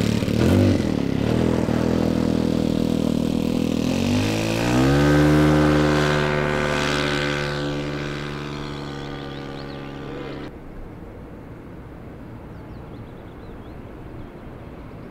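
Piston engine of a large radio-controlled model warbird running, then throttled up with a rising pitch about four and a half seconds in and held at full power for the takeoff run. About ten seconds in it cuts off abruptly to a much fainter background.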